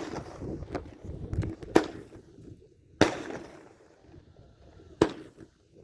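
Fireworks going off: four sharp bangs, one every second or two, the first one weaker, each trailing off in an echoing tail.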